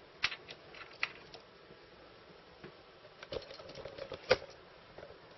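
Small clicks and light scraping of a metal dental pick working a new rubber capstan belt around the motor pulley inside a reel-to-reel tape deck's chassis. A few ticks come at the start, then a busier patch of clicking and scraping about three seconds in, with one sharp click about four seconds in.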